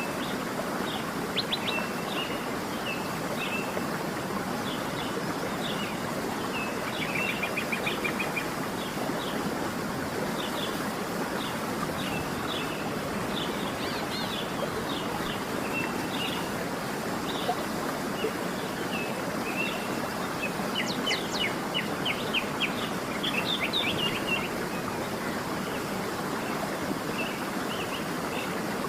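Waterfall rushing in a steady hiss, with songbirds chirping over it in short repeated calls, a brief trill about a quarter of the way in and a busier run of calls after the midpoint.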